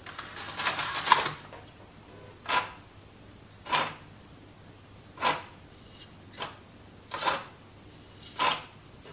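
LG BD550 Blu-ray/DVD player's disc drive taking in a DVD with a rattling whir, then making a short whirring click roughly once a second as it tries again and again to spin the disc. The drive is not getting a grip on the disc: the clamp isn't holding it in place.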